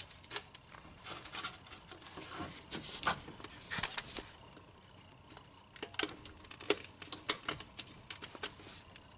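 Scattered light clicks and rustling from a gloved hand working plastic wiring-harness connectors and a clip onto a car starter, down among the engine's hoses and wiring.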